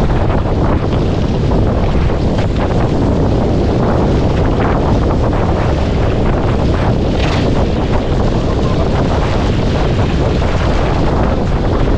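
Steady wind buffeting the microphone over water rushing along the hull of a racing sailboat under sail, with one brief louder hiss about seven seconds in.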